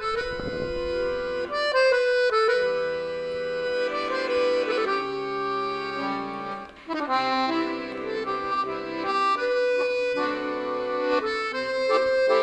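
Scandalli piano accordion played solo: a melody over held notes, with a brief break about seven seconds in.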